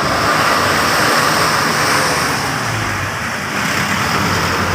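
Heavy diesel engine running steadily amid loud mechanical noise, with a low, even hum coming in about two and a half seconds in.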